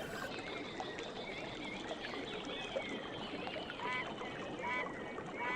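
A running stream with birds singing over it: assorted thin whistles, and in the second half one bird repeats a short trill about once a second.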